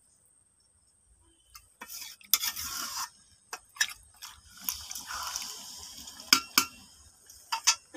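Metal spatula stirring and scraping chicken and potatoes in a thin curry gravy in a metal pan, with the liquid sloshing and sharp clinks of the spatula against the pan. It starts nearly two seconds in and goes on in spells.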